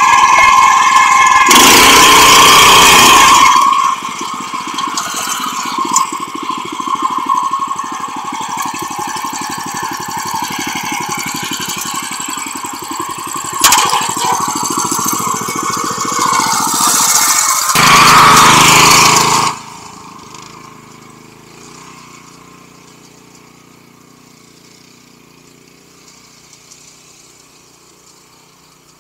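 The small engine of a 7 hp rotary tiller (power weeder) runs loud at first, then settles to a steady, evenly pulsing low-rev chug for several seconds. Near the two-thirds mark it revs up loud once more, then drops away suddenly to a faint level for the rest.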